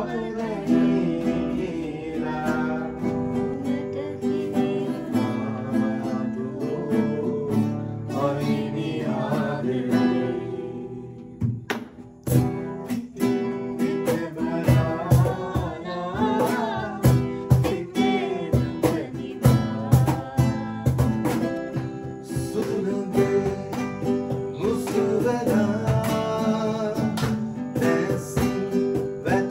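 Acoustic guitar strummed in a steady rhythm while voices sing along. There is a brief drop about twelve seconds in, after which the strumming comes through more sharply.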